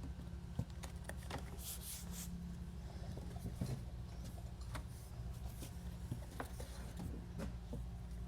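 Faint scattered taps, clicks and rustles of a water-activated drywall corner trim stick being handled and pressed into place on an outside drywall corner, over a low steady hum.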